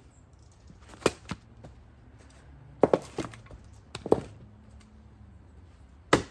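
Several short wooden knocks and thuds from split firewood pieces being handled and stepped among, with footsteps on the wood-strewn ground; the sharpest knock comes near the end.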